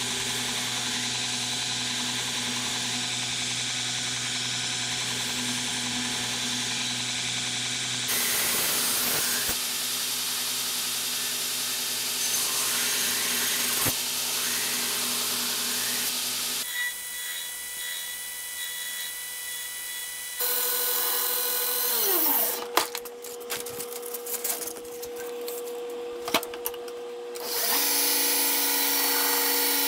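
Belt grinder running while a steel knife blade is ground against its abrasive belt. Several clips are cut together, so the motor hum and grinding noise change abruptly a few times.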